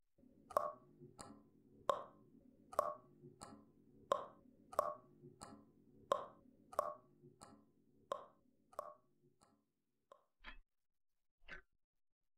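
Water dripping from a faucet, a drop striking about every two-thirds of a second over a low hum. The drips stop about ten seconds in, and an alarm clock ticks about once a second.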